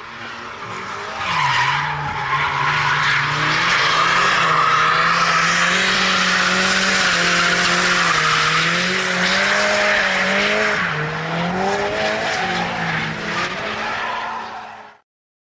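Drift car's engine held at high revs, its pitch stepping up and down with the throttle, over the continuous hiss and squeal of rear tyres spinning and sliding sideways. The sound cuts off suddenly near the end.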